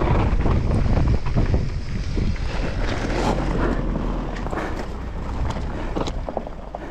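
Wind buffeting the microphone over Santa Cruz Megatower enduro mountain bike tyres rolling on gravel and dirt, with scattered clicks and rattles from the bike. It grows steadily quieter as the bike slows.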